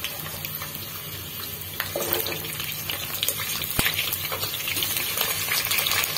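Cauliflower florets frying in hot oil in a karahi: a steady sizzle that grows louder about two seconds in as more raw florets are dropped in, with a few light knocks as pieces land in the pan.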